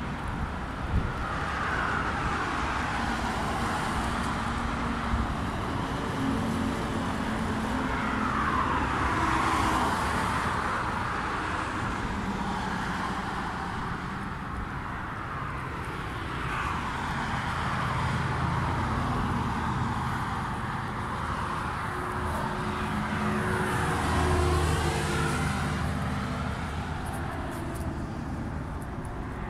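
Road traffic: cars passing one after another on an open road, tyre and engine noise swelling and fading several times.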